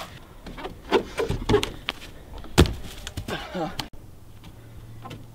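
Several short dull thumps and knocks with faint voices between them, the loudest thump about two and a half seconds in. About four seconds in the sound cuts off suddenly to a quieter background with a steady low hum.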